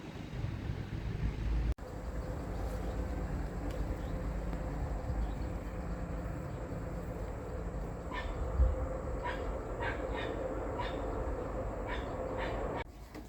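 A dog barking repeatedly, about two barks a second, starting about eight seconds in, over a steady low rumble.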